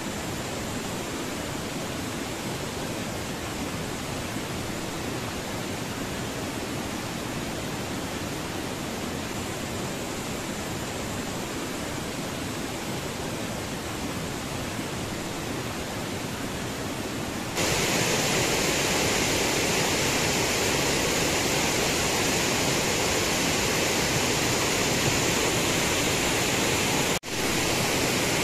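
A swollen stream rushing over rocks in a steady roar of water. It gets louder about two-thirds of the way through, and near the end it drops out for a moment.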